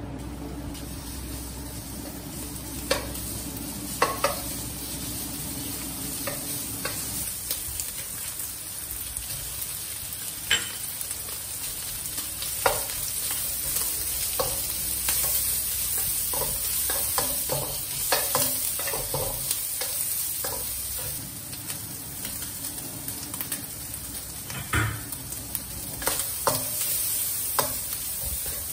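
Food sizzling as it is stir-fried in a pan, a steady frying hiss with scattered knocks and scrapes of the spatula against the pan.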